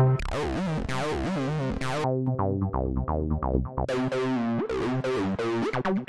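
Image-Line Transistor Bass synthesizer playing a fast sequenced bass riff, the notes shaped by a sweeping filter. The tone changes a couple of times as it steps from one factory preset to the next.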